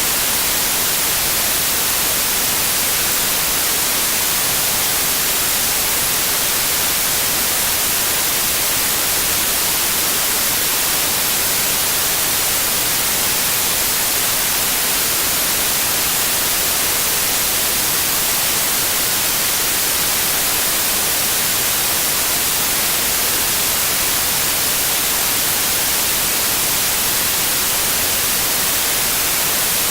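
Steady white noise: an even, unchanging hiss, strongest in the high range, with no tone or event standing out.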